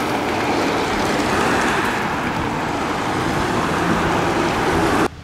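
A large pack of road racing bicycles passing on asphalt: a steady whir of tyres and drivetrains that stops abruptly near the end.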